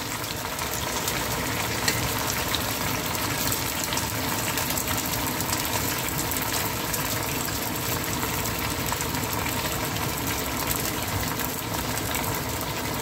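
Mango pieces sizzling steadily in hot oil and caramelized sugar in a pot, a continuous frying hiss, with a couple of light clicks about two seconds in.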